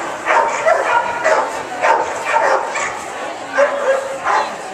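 A dog barking excitedly in quick, repeated barks, about two to three a second, with a brief gap a little past halfway.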